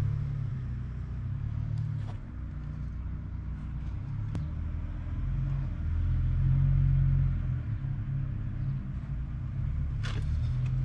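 Low, uneven rumble that swells and fades, with a few faint clicks, the loudest near the end.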